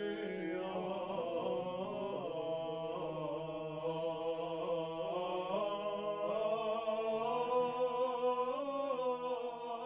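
Byzantine chant sung by male voices: a slow melodic line over a steady held drone (ison).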